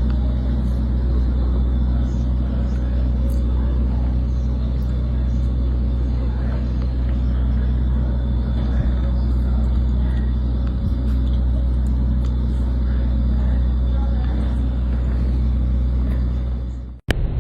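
Motor vehicle engine running at a steady speed: a constant low rumble with a steady hum, which cuts off abruptly near the end.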